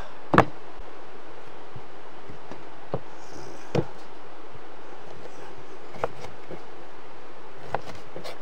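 Steady rushing of a river, with a few sharp knocks and clicks from cooking work; the loudest knock comes about half a second in.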